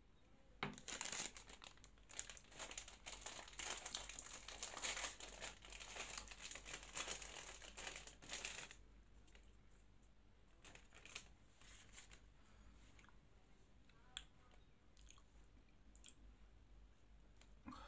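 Plastic wrapper of a Magnum ice cream bar crinkling and tearing as it is opened, for about eight seconds. After that only a few faint, scattered clicks.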